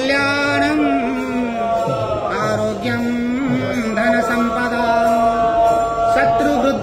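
A man's voice chanting a Hindu devotional hymn in long held notes, stepping between pitches with slight wavers.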